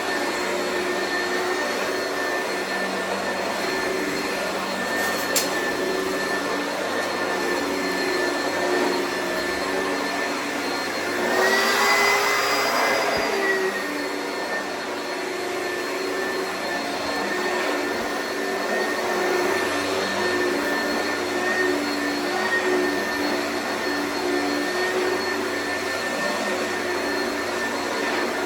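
Oreck vacuum cleaner running steadily with a constant motor whine. About eleven seconds in, it grows louder for two or three seconds and the pitch rises slightly, then settles back. There is a single click a few seconds in.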